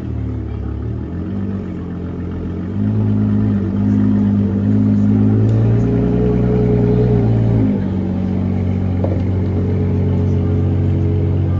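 Ferrari 812 Competizione's naturally aspirated V12 running at low revs as the car pulls away slowly. The note steps up about three seconds in, holds steady, and falls back near eight seconds.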